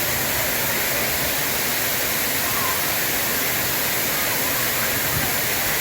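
Artificial waterfall: water pouring and splashing in a steady, even rush.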